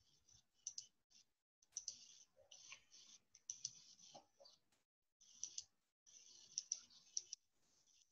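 Faint computer mouse clicks, scattered and irregular, among short bursts of high hiss that cut in and out.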